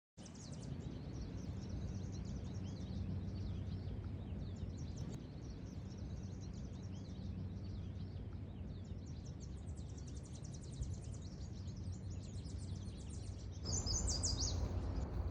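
Many small birds chirping and twittering over a steady low rumble of background noise. About fourteen seconds in, the rumble gets louder and one bird calls loudly close by.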